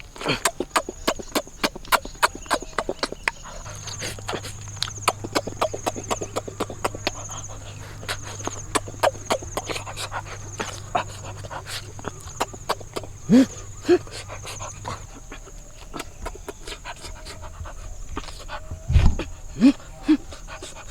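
Rapid, irregular wet chewing and smacking clicks of meat being eaten, over a steady high insect drone, with a few short rising squeaks.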